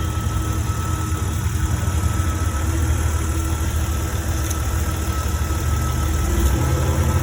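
2004 Jeep Grand Cherokee's 4.0 straight-six idling steadily, just refilled with fresh oil after an oil change.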